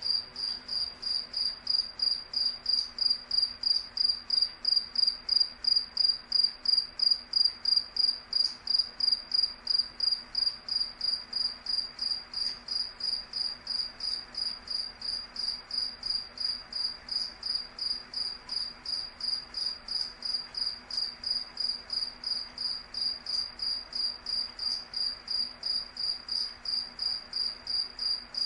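A cricket chirping steadily, a high, clear pitch repeated evenly at about three chirps a second.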